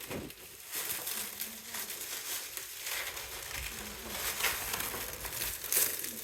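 Packaging rustling and crinkling in uneven swells as a heat press is worked out of its box and wrapping.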